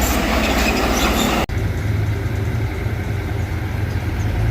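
A loud, hissing, rattling noise cuts off abruptly about one and a half seconds in. It gives way to a heavy diesel machine's engine running with a steady low hum.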